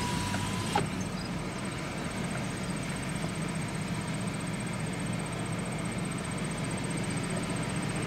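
A car idling, heard from inside the cabin: a steady low hum over a faint even noise, with one short click just under a second in.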